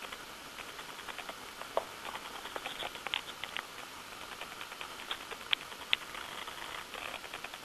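Wind-blown snow pattering against a surface: a dense, irregular fine ticking over a steady hiss, with a few sharper clicks standing out.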